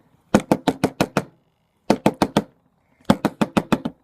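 A small packed container rapped against a hard surface in three quick bursts of sharp knocks, about six a second, each with a short hollow ring, to shake loose its tightly compacted contents.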